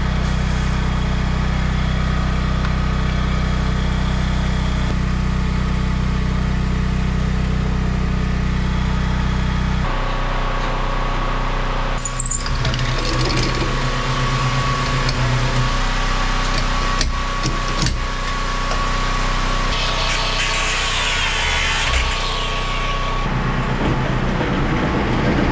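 A small engine running steadily, with work on metal cutting in about ten seconds in: a few sharp clicks, a short rhythmic buzz and a faint steady whistle, before the steady engine sound returns near the end.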